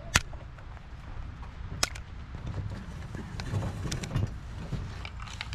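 Two sharp gunshots about a second and a half apart, the first the louder, followed by fainter clicks and knocks.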